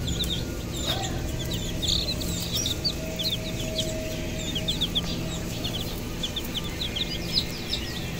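Chicks peeping: a flock of domestic chicken chicks giving many short, high-pitched peeps, several a second and overlapping, over a steady deep rumble.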